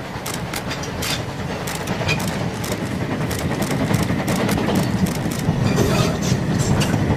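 Narrow-gauge steam locomotive 99 4511 hauling a short train past, growing louder as it approaches: a quick run of sharp exhaust beats and wheel clicks over the rail joints above a steady rumble.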